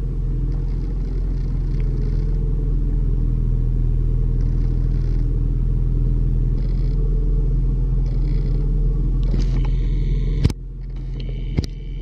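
Steady low rumble of an idling car engine. About ten seconds in, a sharp click cuts it to a quieter hum.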